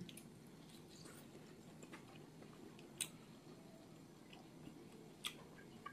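Faint chewing of steamed pork momos, with a couple of small mouth clicks.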